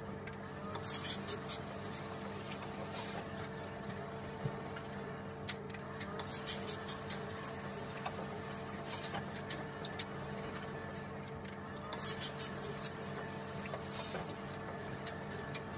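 Steam iron hissing in several short bursts of steam as it is pressed and slid over a shirt on the ironing board, with fabric rubbing between bursts. A steady low hum runs underneath.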